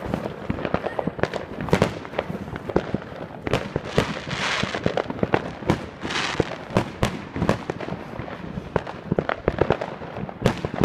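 Fireworks going off close by: many sharp bangs and crackles in quick succession, with two hissing stretches about four and six seconds in.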